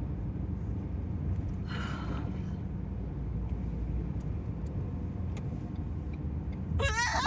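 Steady car-cabin road rumble at highway speed, with a woman's short hiccup about two seconds in and another, louder vocal hiccup near the end.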